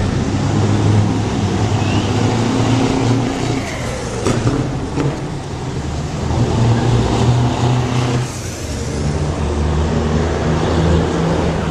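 Heavy trucks driving past one after another, among them Scanias with open exhaust pipes. Their diesel engines make a loud, steady low drone that changes in pitch and character as each truck goes by.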